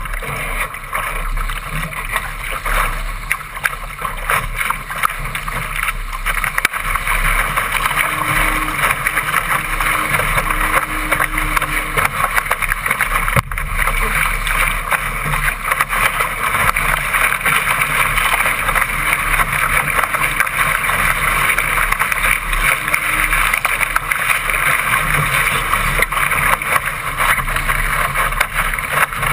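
Laser dinghy's bow driving through choppy water, with a steady hiss of rushing water and spray splashing over the deck. Wind buffets the microphone.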